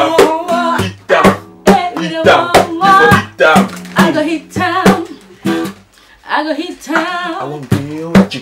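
Acoustic guitar strummed in a steady rhythm, with voices singing along; the playing drops away briefly about six seconds in, then picks up again.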